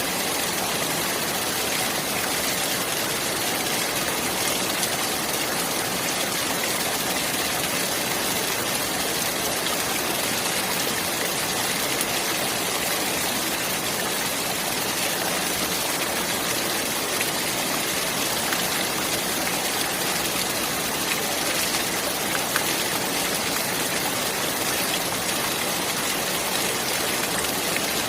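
Flowing water rushing steadily in an even hiss, with no breaks or changes.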